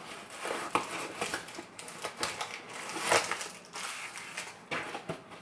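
Cardboard mailing box being handled and its torn flaps pulled, with plastic zip bags of padlocks sliding out onto a table: irregular crinkling, scraping and small knocks, the sharpest crackle about three seconds in.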